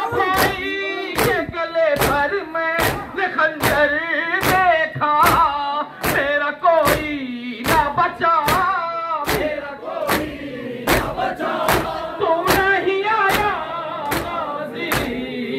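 A crowd of men chanting a nauha in unison while beating their chests in matam. Sharp open-hand slaps land together at a steady beat, a little over one a second.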